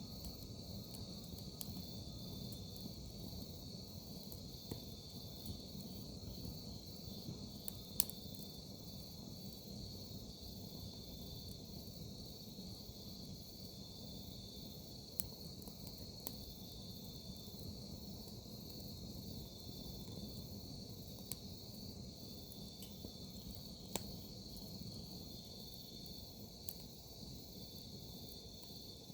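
Crickets and other grass insects trilling steadily, with a wood fire crackling and giving a few sharp, scattered pops.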